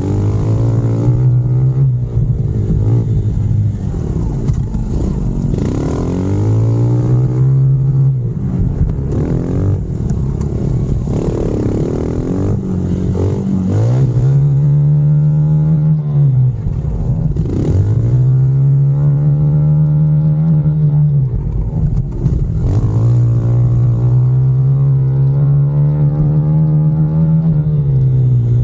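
Honda CRF110F pit bike's small four-stroke single-cylinder engine ridden hard, its revs climbing and falling back again and again as the throttle is opened and shut, with long pulls in the second half.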